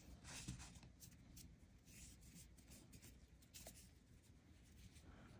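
Faint, soft rustling and scratching of yarn and a crochet hook as stitches are worked, in short irregular strokes.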